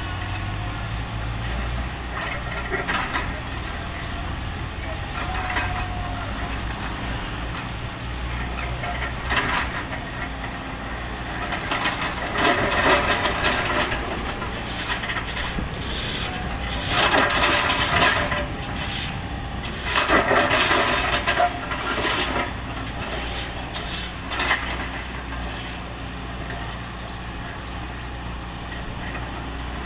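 A heavy engine running steadily under road repair work, with bursts of scraping and clatter about twelve to twenty-two seconds in.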